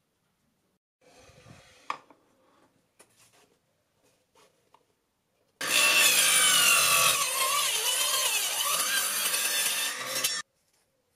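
Angle grinder fitted with a wood-cutting saw disc, mounted as a homemade miter saw, cutting through a thin wooden strip at 45°: a loud, high motor whine mixed with cutting noise for about five seconds, its pitch dipping as the blade bites, then cutting off suddenly. Before it come a few faint clicks and knocks.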